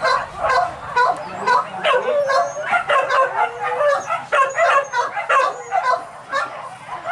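Hunting dogs yelping and barking over and over, about two to three short, rising and falling calls a second.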